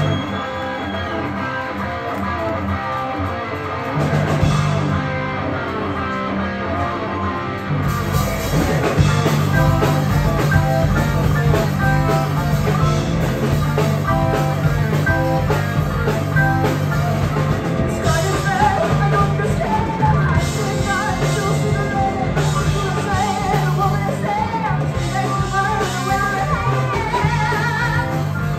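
Live rock band playing loudly on electric guitars, bass, keyboard and drums; a bass line comes in about four seconds in and the full band with drums kicks in about eight seconds in.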